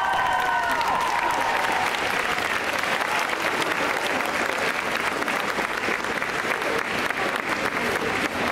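Large crowd applauding steadily. The last held notes of the song die away in the first two seconds.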